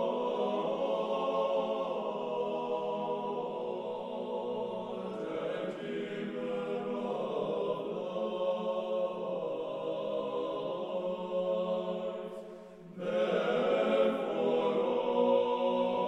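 A choir singing slow chant in long held chords, pausing briefly about twelve seconds in before the next phrase begins.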